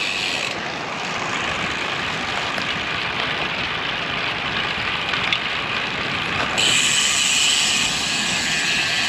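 Steady rushing wind noise on the microphone while cycling in strong gusty wind, mixed with road noise from the bike, turning brighter and hissier about six and a half seconds in.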